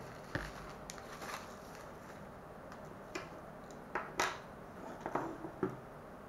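Handling noise from unboxing: plastic packaging rustling and crinkling, with scattered light clicks and knocks as small plastic parts and a cable are picked up and set down on a wooden table. The loudest crinkle comes a little after four seconds in.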